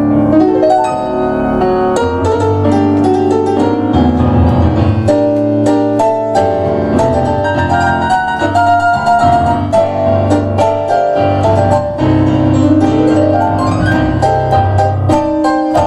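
Piano duet on two digital keyboards, one a Kawai MP6 stage piano, playing tango. The notes come thick and quick in fast runs, with a climbing run near the end.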